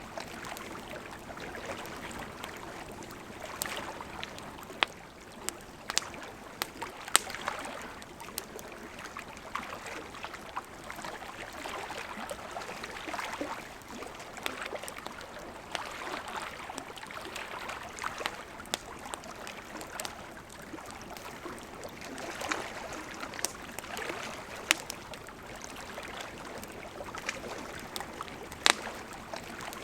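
Campfire crackling, with sharp pops every few seconds, over small lake waves lapping steadily at the shore.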